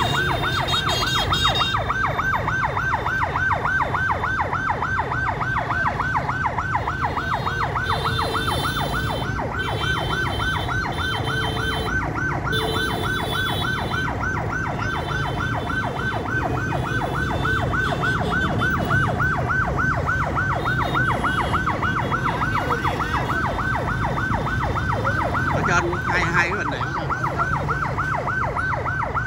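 Fire engine siren on a fast yelp, its pitch sweeping rapidly up and down without a break, over the low rumble of idling motorbikes and traffic.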